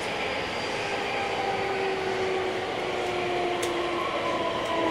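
JR West 321 series electric train under way, its Hitachi IGBT VVVF inverter and traction motors whining over steady rolling noise. The main whine slides slowly down in pitch while higher tones come in later, with one sharp click about three and a half seconds in.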